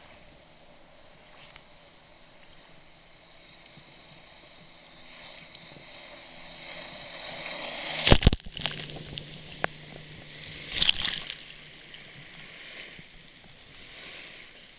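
Jet ski engine running on the water, growing louder as it comes close, then a loud burst of spray hitting the microphone about eight seconds in. More splashes and the wake sloshing follow, with the engine humming fainter as it moves away.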